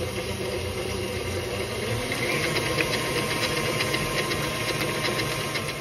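Electric stand mixer running steadily, its beater creaming butter, sugar, egg and vanilla. About two seconds in, a rapid fine ticking joins the motor hum.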